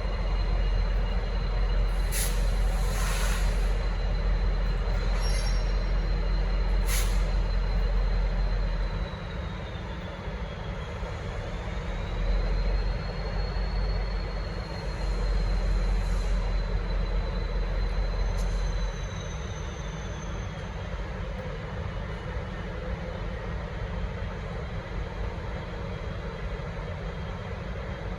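V/Line N class diesel-electric locomotive running with a heavy low rumble that eases about nine seconds in, returns for several seconds, then drops back. A thin high squeal runs throughout, dipping and rising slowly in pitch, and two short hisses come in the first several seconds.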